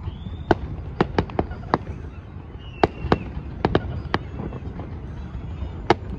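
Aerial fireworks shells bursting: about a dozen sharp, irregularly spaced bangs, some close together in quick runs.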